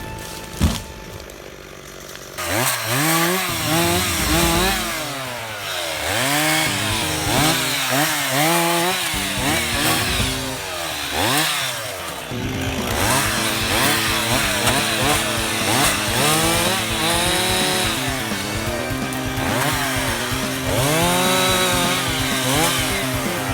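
Chainsaw engine running and revving up and down again and again, starting about two and a half seconds in, with a sharp knock just before, under a second in.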